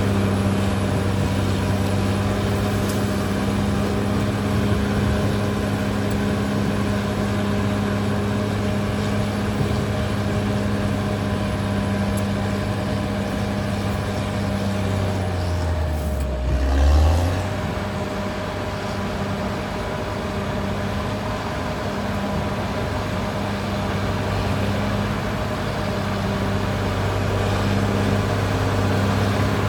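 Caterpillar D6R XL bulldozer's diesel engine running steadily at working revs. About halfway through its pitch drops and there is a short, louder surge, then it settles back to a steady run.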